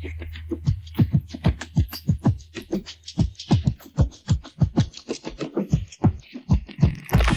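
Isolated programmed metal drum track from the GGD Invasion sampled kit. A low boom dies away at the start, then a busy, quick pattern of drum hits follows at about six a second, with a brighter cymbal-like wash near the end.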